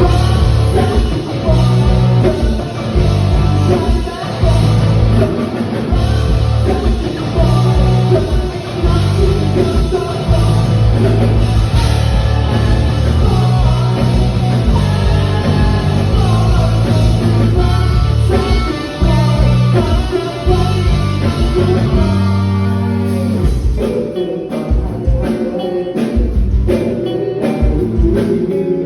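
A band playing a pop-rock song with a singer over guitar, bass and drums. The bass drops out for a moment about 23 seconds in, and the drum strokes stand out more after that.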